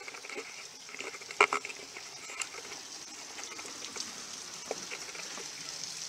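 Quiet outdoor background with scattered light ticks and one sharp click about a second and a half in.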